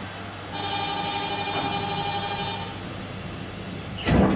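Electronic chime on board a Nippori-Toneri Liner automated guideway train: a steady chord of several ringing tones held for about two seconds. A loud thump follows near the end.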